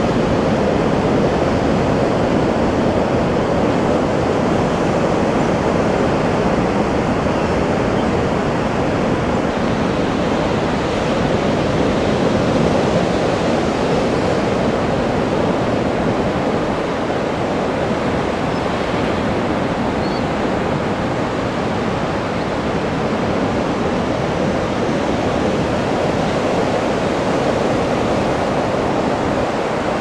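Ocean surf breaking on a sandy beach: a steady, even rush of waves.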